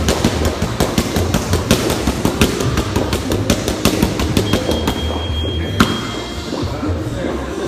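Boxing gloves striking focus mitts in fast flurries of sharp smacks, several a second, ending with one loud smack about six seconds in. Music plays in the background.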